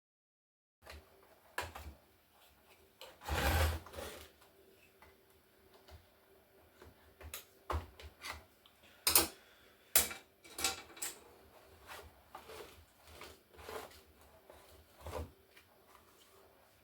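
Hands working on a mid-1990s Toshiba T4700CT laptop as it is taken apart, plastic and metal parts clicking and knocking. There are about a dozen sharp taps, and a longer rubbing scrape about three and a half seconds in.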